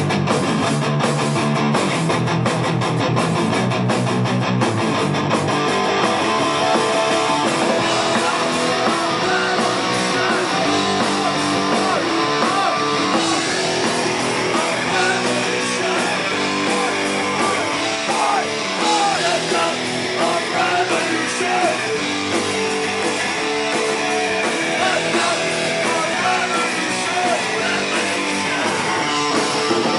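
Rock band playing live, led by electric guitar.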